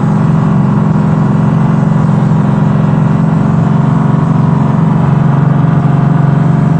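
A machine running with a steady, even drone that holds the same pitch throughout.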